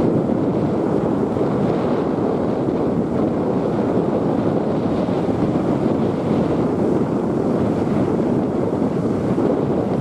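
Wind buffeting the microphone: a steady, heavy rushing noise with no other distinct sound over it.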